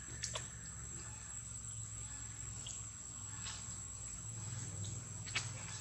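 Steady high-pitched drone of insects in the trees, with a few short sharp clicks, the loudest near the end.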